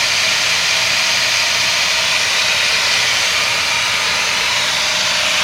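A grinder running steadily as it cuts through steel rivets on a truck's coil spring bucket, a loud even hiss of metal being ground away.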